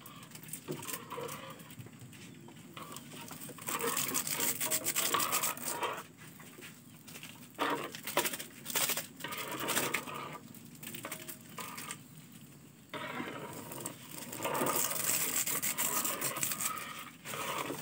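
Plastic instant-noodle seasoning sachets being torn and squeezed, crinkling in bursts, with a metal spoon stirring and scraping in an aluminium wok of broth.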